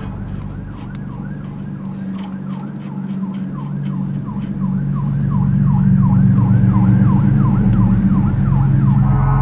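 A siren-like yelp whose pitch sweeps up and down two to three times a second over a steady low drone, growing louder.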